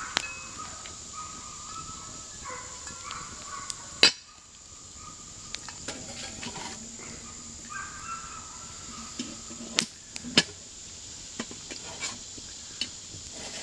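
Cast iron pot and lid clanking against each other and on a wire grate as the lidded pot is set over a campfire: one loud clank about four seconds in and two more near ten seconds, among small crackling clicks. A steady high insect drone runs underneath.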